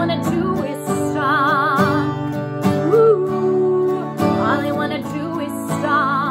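A woman singing a slow melody with vibrato on held notes while strumming an acoustic guitar.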